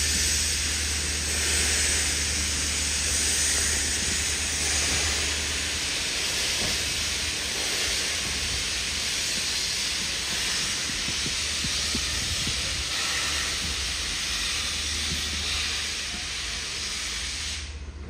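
Steam locomotive, the GWR Prairie tank No 5552, blowing off a loud, steady hiss of escaping steam that cuts off suddenly just before the end, with a low hum underneath.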